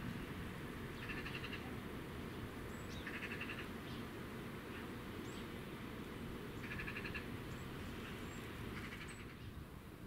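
Short buzzy, rapidly pulsed animal calls, about half a second each, repeat roughly every two seconds. Faint thin high chirps fall between them, over a steady low rumble.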